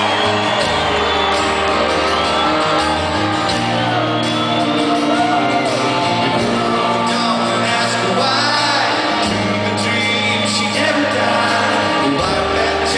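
Live rock band playing a slow song with a sung lead vocal, recorded from the audience in a large concert hall, with crowd shouts and whoops over the music.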